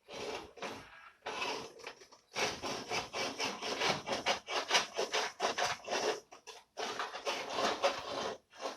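Rapid back-and-forth rubbing or scraping strokes, several a second, with short breaks about one and two seconds in before a longer unbroken run.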